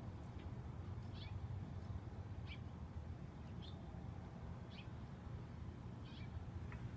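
Short, falling chirping calls of a small animal, repeated about once every second and a bit, over a steady low rumble.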